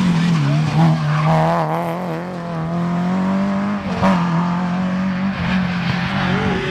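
Renault Clio rally car's engine at racing speed as the car passes and pulls away, its revs wavering and then dipping and picking up again about four seconds in.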